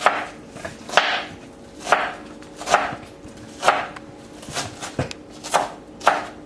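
Kitchen knife chopping red onion finely on a plastic cutting board: sharp knocks of the blade on the board, about one a second, coming a little faster near the end.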